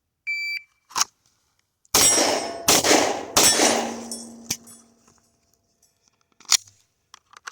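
A shot timer's start beep, then three quick 9mm shots from a Glock 19 pistol about two-thirds of a second apart, each with a long ringing tail that lingers after the last shot. A sharp click follows about a second later, and another crack near the end.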